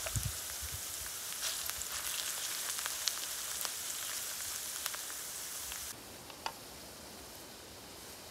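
Sliced potatoes sizzling in a frying pan over a wood camp stove, with scattered sharp crackles. About six seconds in the sizzle drops to a quieter hiss, broken by one sharp click shortly after.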